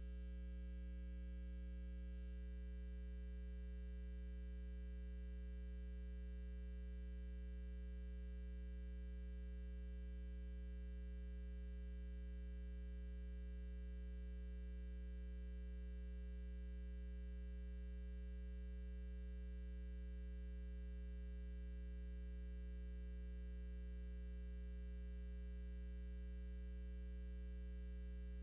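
Steady electrical mains hum, a low buzzing tone with its overtones, unchanging throughout; no other sound stands out.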